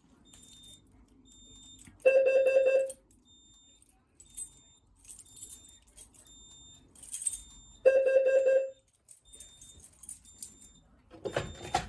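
Fire alarm system sounding after a pull station is activated: two loud electronic alarm tones, each just under a second long and about six seconds apart, over a faint high beep repeating about once a second.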